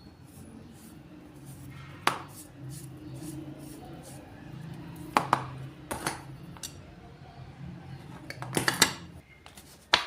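Scattered sharp clinks and knocks of hard objects being handled, like metal tools or utensils. About six strikes, the loudest few close together near the end, over a low steady hum.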